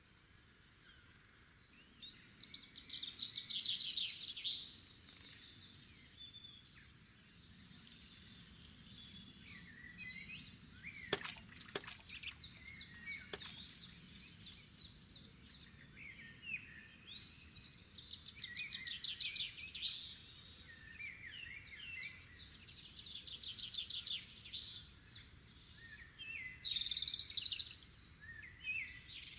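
Songbirds singing, with several bursts of rapid, high trilling song, the loudest about two seconds in. A few sharp clicks sound around the middle.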